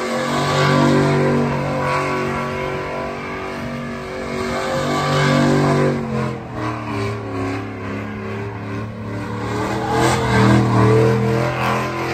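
Pickup truck engine revved hard and held high while its rear tires spin through a smoky donut burnout. The revs drop about six seconds in, then climb back up to their loudest near the end.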